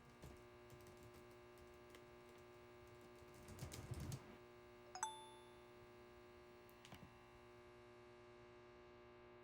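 Near silence over a steady electrical hum, with faint scattered clicks and a short electronic tone about five seconds in.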